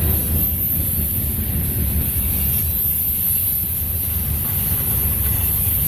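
Covered hopper cars of a freight train rolling past, a steady low rumble of steel wheels on rail, with wind on the microphone.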